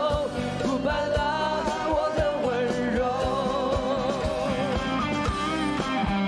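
Live rock band performance: a male voice sings a held, wavering line with vibrato over electric guitar and a steady drum beat.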